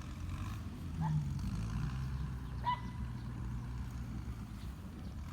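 A dog giving two short yelps, about a second in and again a couple of seconds later, over a steady low motor hum.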